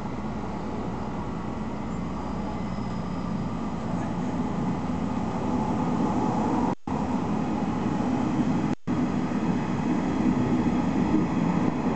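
Running noise of a Nishitetsu electric train heard from inside the passenger car, a steady rumble of wheels on rails with motor hum, growing louder as the train pulls away from a station and picks up speed. The sound cuts out completely twice for a moment.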